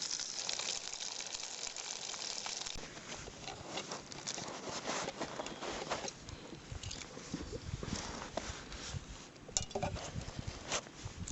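Burgers frying with a steady sizzle for the first few seconds. After a sudden change, irregular soft knocks, clicks and rustles follow.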